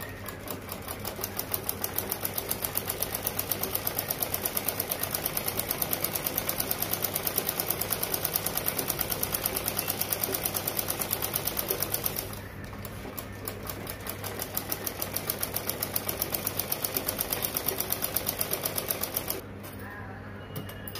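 Black domestic sewing machine stitching in a rapid, even rhythm. It gathers speed over the first second or two, pauses about twelve seconds in, then runs again for about five seconds before stopping near the end.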